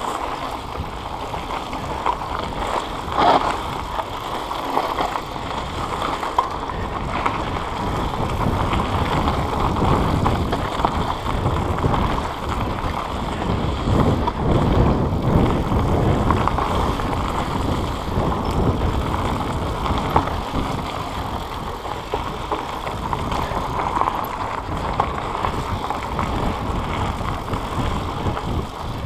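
Mountain bike ridden over dry, rough dirt singletrack: steady tyre noise on the dirt and the bike rattling over bumps, with a sharp knock about three seconds in.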